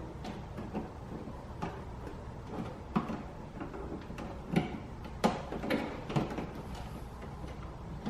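Scattered clicks, knocks and rustling of hands working a wiring cable and plastic interior trim, with a few sharper knocks about halfway through.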